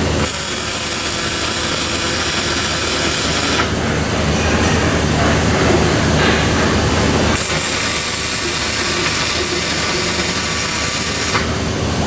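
Robotic MIG welding arc hissing in two welds, each about three to four seconds long, with a gap of a few seconds between them. A steady machine hum runs underneath.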